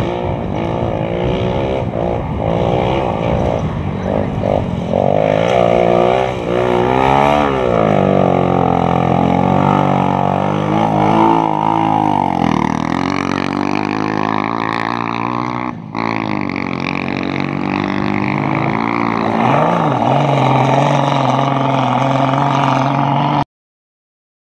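Off-road race car engine running hard, its pitch repeatedly rising and falling as it revs up and drops back. It stops suddenly near the end.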